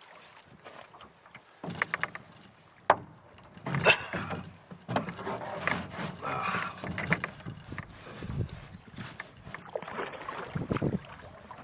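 A tandem canoe being paddled off: the paddle knocks against the hull among uneven splashing and swishing of water. The sharpest knock comes about three seconds in.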